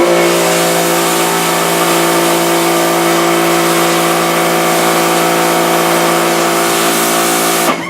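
Pressure washer spraying a screen-printing screen to wash out the stencil emulsion: a loud, steady hiss of the water jet over the constant hum of the pump running. It starts abruptly and cuts off abruptly near the end.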